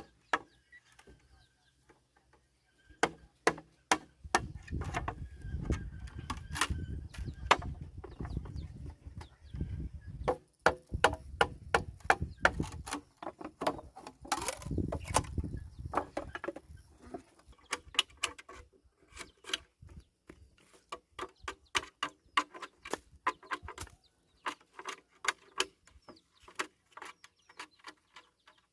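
Many sharp knocks and taps in irregular quick runs, over a low rumble through the first half.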